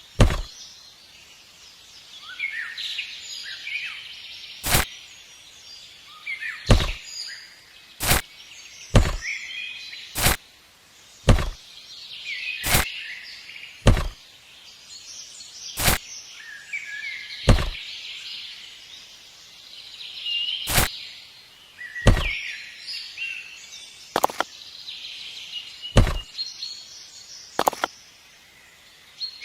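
Sharp knocks, about one every one to two seconds, with birds chirping in the background.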